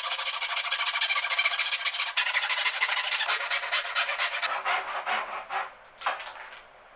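Hand saw cutting a dovetail in wood with quick, even back-and-forth strokes. The strokes slow and fade about five seconds in, with a last stroke or two near the end as the cut finishes.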